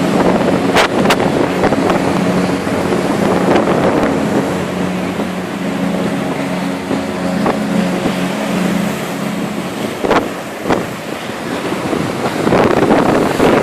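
A boat engine drones steadily, fading out about ten seconds in, with wind noise on the microphone and a few sharp knocks.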